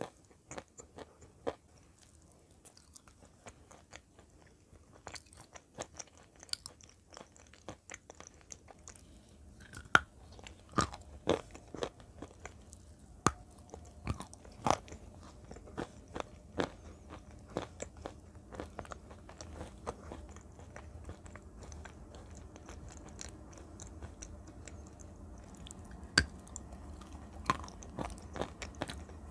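Close-miked biting and chewing of chunks of edible clay: irregular sharp crunches and cracks, thickest and loudest in the middle stretch and again near the end.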